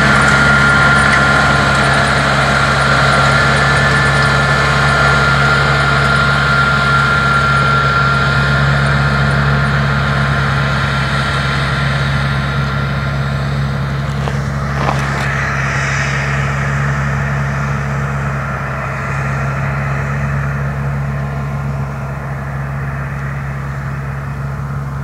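Diesel farm tractor engine running steadily under load while it drags a tine cultivator through dry soil. It grows gradually quieter as the tractor pulls away.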